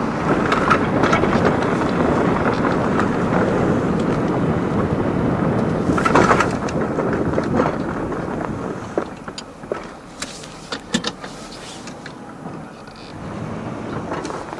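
Old 1994 Chevy plow truck running while plowing snow, heard from inside the cab. A dense, loud noise lasts about nine seconds, then it turns quieter with scattered clicks and knocks.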